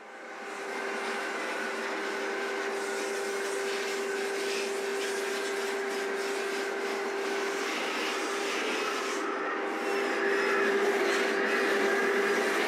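Power sander with a vacuum dust-extraction hose running steadily on the fibreglass inside the hull, a constant hum over rushing extractor noise. It fades in over the first second.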